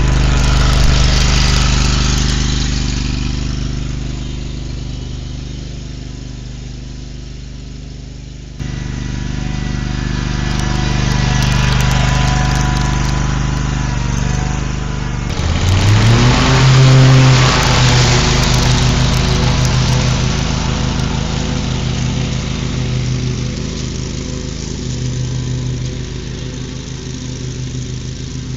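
Scag zero-turn mower engine running steadily. Its pitch rises over about a second roughly halfway through as it revs up, and the sound changes abruptly twice along the way.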